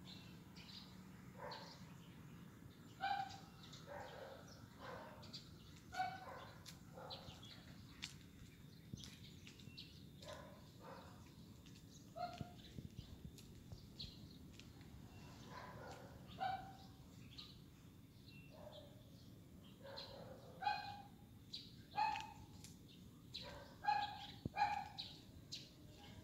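Short, pitched animal calls repeated irregularly, well over a dozen times, over a faint steady background noise.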